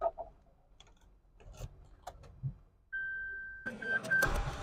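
A few small key clicks, then a steady electronic warning tone as the ignition comes on. Near the end the Suzuki Alto's 660 cc three-cylinder engine is cranked and catches, a smooth start.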